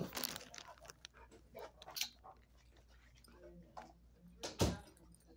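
A dog moving about on carpet right beside the phone: faint scattered clicks and crunches, and a brief louder brushing sound about four and a half seconds in.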